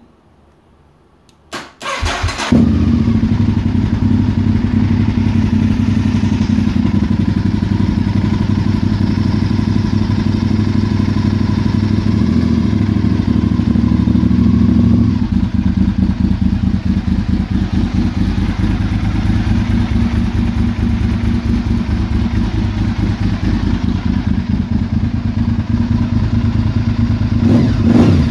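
2002 Honda RC51 SP2's 90-degree V-twin, fitted with a Yoshimura slip-on exhaust, turns over briefly on the starter, catches and settles into a steady idle. Near the end there is one short blip of the throttle.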